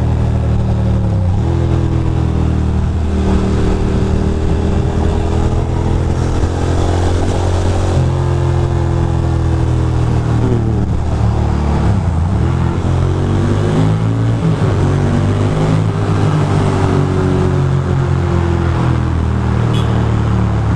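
Ducati Monster 620's air-cooled L-twin engine running under way inside a road tunnel, its pitch rising and falling several times as the rider rolls the throttle on and off and changes gear.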